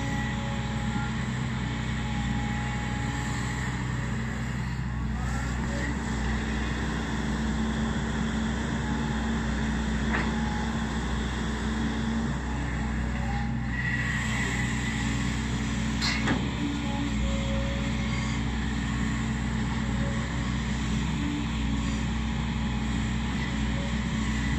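Volvo EC210B excavator's diesel engine running steadily, with two short sharp knocks about ten and sixteen seconds in.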